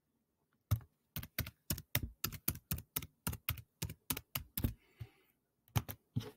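Computer keyboard keys clicking as a password is typed: a run of keystrokes about four a second, then after a short pause two more clicks near the end.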